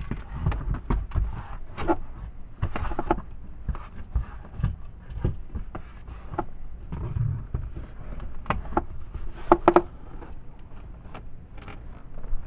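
Scattered knocks, clicks and rustling at irregular intervals, with a quick run of three sharp clicks about three quarters of the way through.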